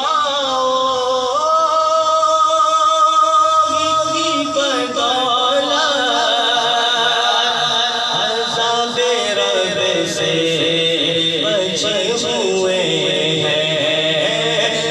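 A man singing a naat, an Urdu devotional song in praise of the Prophet, with long held, wavering notes, amplified through a sound system.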